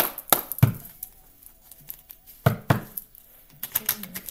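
Deck of tarot cards being shuffled and slapped down on a table: a handful of sharp card snaps and taps, grouped at the start, about halfway through and near the end.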